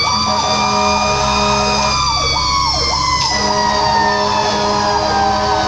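Fire engine's siren sounding while the truck drives: a held electronic tone broken every half second or so by quick dips, together with a second siren tone that slowly falls in pitch, over the low drone of the engine.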